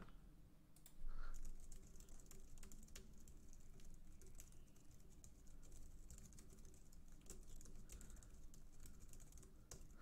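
Typing on a computer keyboard: quick, irregular runs of key clicks as a long string of characters is entered.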